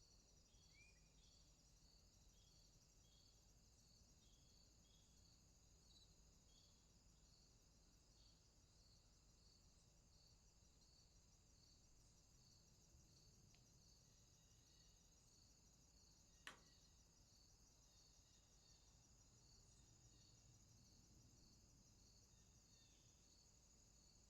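Faint crickets: a steady high trill with a regular chirp pulsing under it, and one sharp click about sixteen seconds in.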